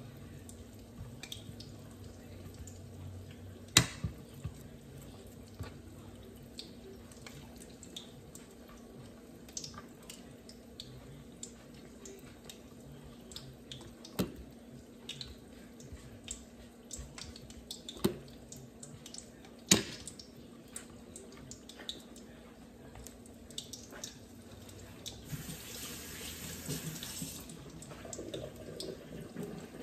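Lumpia frying in hot oil in an electric pot: scattered soft crackles and pops over a steady hum, with a few sharper clicks and a short hiss near the end.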